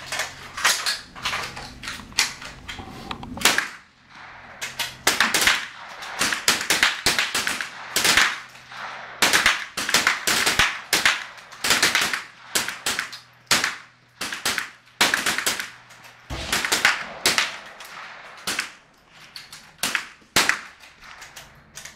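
.22 rifles fired by a line of shooters in a match string: a steady, irregular run of sharp, echoing cracks, many overlapping and closely spaced.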